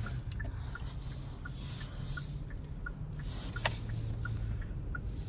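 A new Hyundai's turn-signal indicator ticking steadily, a couple of times a second, over the low rumble of the car's cabin while driving. There is a single sharper click a little past the middle.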